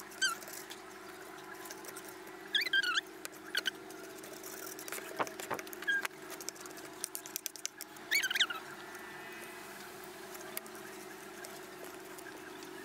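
Metal spoon and fork scraping and tapping on a plate as oily seasoning and sauces are mixed. Short high squeaks come in a few brief bursts, with small clicks between them.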